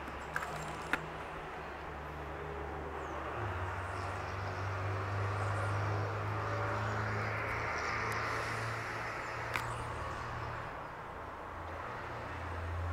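Outdoor ambience with a steady low motor hum and road traffic swelling past in the middle. A few sharp clicks come through, two near the start and one about two-thirds of the way in.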